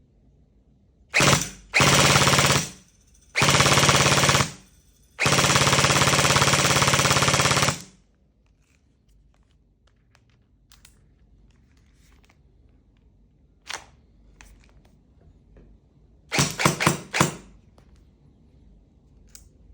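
Electric gel blaster styled as a Kriss Vector firing in full-auto bursts, its motor-driven gearbox cycling rapidly. There are four bursts in the first eight seconds, the last about two and a half seconds long. Later comes a single click and then a quick string of about five shots.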